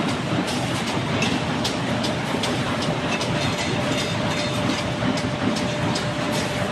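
Automatic corrugated-carton line (flexo printer, folder gluer and baler linked together) running: a steady mechanical clatter with sharp clicks a few times a second.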